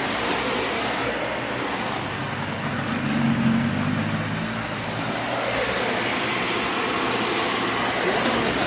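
Dyson vacuum cleaner running steadily under load as it vacuums up dirt, a continuous motor whine and airflow rush whose low hum swells slightly a few seconds in.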